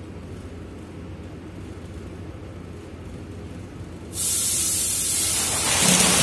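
A low steady hum, then about four seconds in a sudden loud rush of water gushing out of the opened strainer housing on a chilled-water line. The water carries out the sludge and debris that had blocked the strainer.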